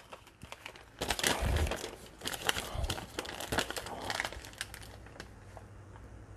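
A small clear plastic parts bag and a paper packing slip crinkling as they are handled, in irregular crackles from about a second in that ease off near the end.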